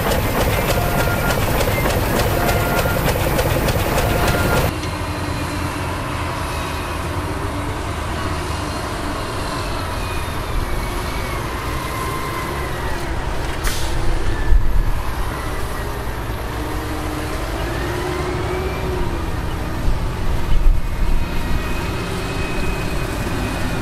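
Heavy dump truck's diesel engine running with a steady low rumble, its pitch rising and falling as it works. There is a rapid clattering for the first few seconds, then the sound changes abruptly, and there is a sharp bang about fourteen seconds in.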